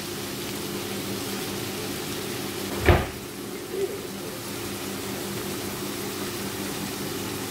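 A steady machine hum with several fixed low tones, broken by one sharp knock about three seconds in.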